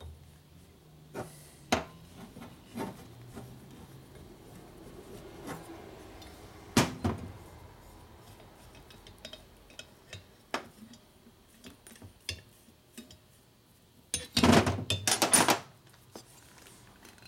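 Metal clicks and clinks of a valve spring compressor being worked on a Harley-Davidson Sportster Ironhead cylinder head while the valve springs and keepers are set. There is a sharp knock about seven seconds in and a burst of loud metal clattering near the end.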